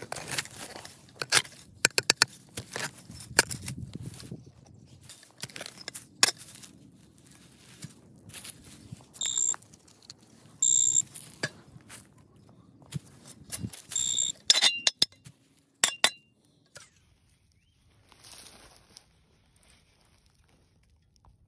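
A shovel digging into grassy soil, with repeated sharp scraping strikes and crunches. A handheld pinpointer probe then beeps three short high beeps as it finds the buried steel in the hole.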